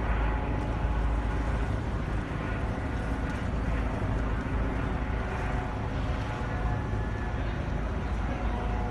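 Steady outdoor city background noise: an even low rumble of road traffic, with faint voices in the distance.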